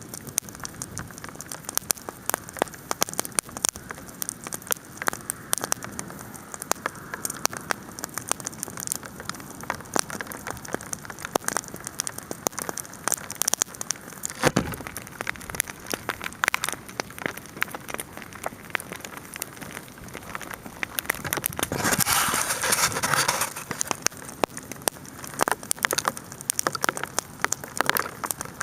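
Bonfire crackling while hail falls: dense, irregular ticks and pops. A louder rushing hiss swells for about two seconds a little past the middle.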